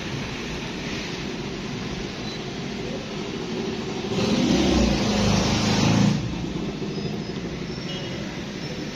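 A running motor-vehicle engine, steady, growing louder for about two seconds midway and then settling back.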